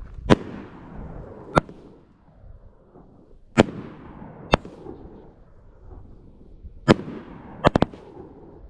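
Fireworks going off: about seven sharp, irregular bangs, each trailing off in an echoing rumble, two of them in quick succession near the end.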